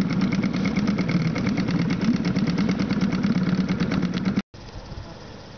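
Small outboard motor on an inflatable boat running under way, a steady putter with rapid, even pulsing. About four and a half seconds in it breaks off sharply to a much quieter, even outdoor background.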